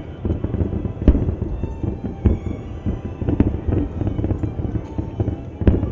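Aerial fireworks shells bursting over a continuous low rumble, with sharp bangs about one, two and three seconds in and again near the end, the first the loudest. Music plays faintly underneath.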